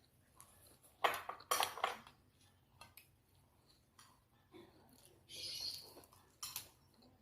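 Cutlery clinking against a plate and dishes during a meal: a few sharp clinks about a second in and again near the end, with a short soft rustle between them.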